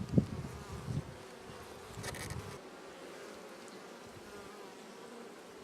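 Honeybees buzzing steadily around an opened hive, with a few knocks in the first second as wooden frames are set back into the hive box, and a short scrape about two seconds in.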